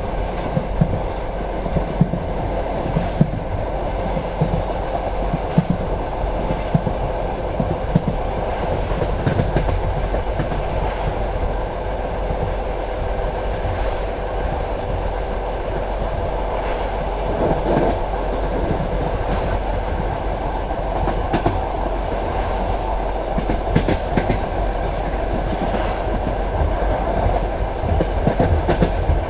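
Passenger train carriage running along the track: a steady rumble with the clickety-clack of the wheels over rail joints, in scattered clicks.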